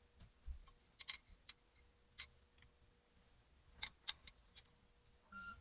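Scattered light clicks and taps of small parts being handled during alternator reassembly, about seven in all, against near silence.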